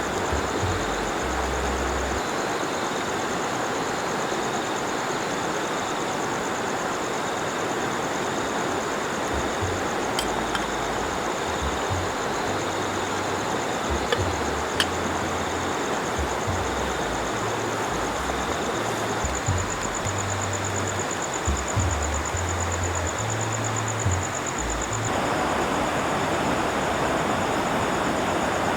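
Steady rush of flowing river water, with a thin, high-pitched trill running over it and a couple of small clicks. The rush grows a little louder near the end.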